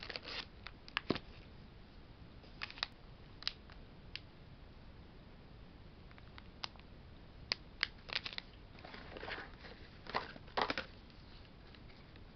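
Plastic product packaging, a clear bag and a stiff blister pack, crinkling and clicking as it is handled and set down on a table: scattered short clicks and brief rustles at irregular intervals, with one longer rustle near the end.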